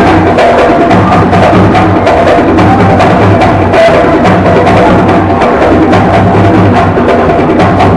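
Loud dance music with a steady drum beat, played for the dancing.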